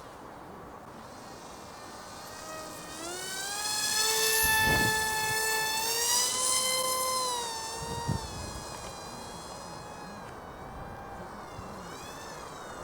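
Small brushless electric motor and propeller of an Eachine mini F-22 RC foam jet whining in flight as it passes. The whine rises in pitch and swells about three seconds in, holds loud for a few seconds, then bends down and fades.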